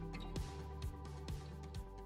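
Outro background music with a steady beat, about two beats a second, slowly fading out.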